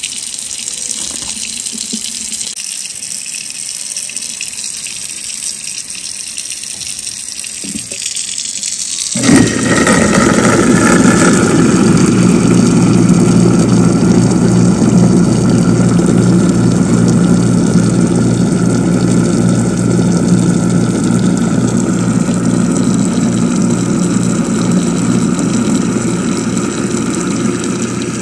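Kitchen tap running into the sink. About nine seconds in, a garbage disposal switches on and runs steadily with a loud hum over the running water, flushing a disposal-cleaner strip through the unit.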